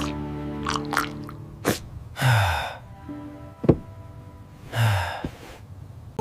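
Background music with cartoon sound effects laid over it: a few sharp clicks and two short swishes, each with a low tone dropping in pitch.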